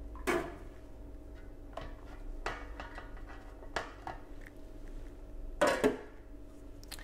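Stainless steel dental instruments clinking against the wire basket and steel tank of an ultrasonic cleaner as they are set in, a few separate clicks, then a louder double clank near the end as the cleaner's steel lid goes on. A faint steady hum runs underneath.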